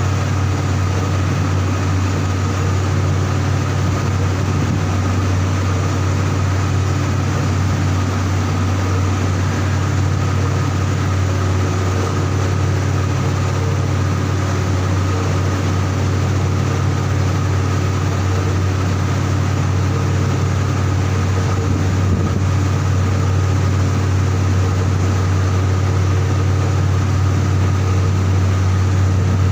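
Heavy machinery running steadily: a loud, even, deep hum with a constant mechanical whir above it, unchanging throughout.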